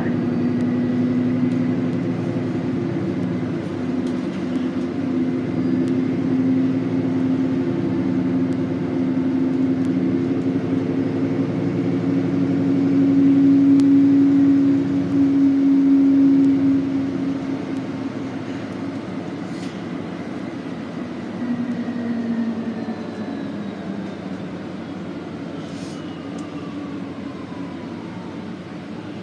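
Inside a 2019 Nova Bus LFS diesel-electric hybrid under way: a steady engine and drivetrain hum that swells about halfway through, then eases off. Over it is a thin high whine from the electric drive that holds, then falls slowly in pitch through the second half as the bus slows.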